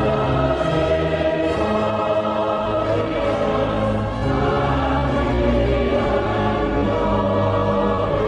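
Music: a choir singing long held chords with an orchestra, the bass line moving slowly under it.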